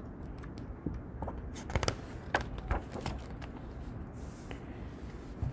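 Pages of a picture book being turned and handled: a few soft rustles and light taps in the first few seconds.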